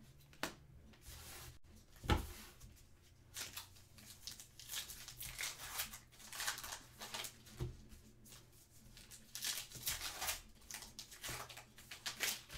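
A trading-card pack's wrapper being torn open and rustled by hand. The packs tear apart easily. A sharp thump about two seconds in is the loudest sound.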